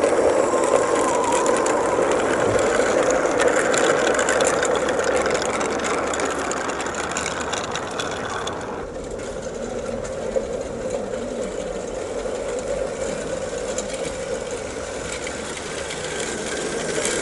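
Electric gearhead motor and bevel-gear drive of a 16mm-scale model locomotive whirring steadily as it runs along the track hauling wagons. About nine seconds in, the sound suddenly becomes quieter and duller.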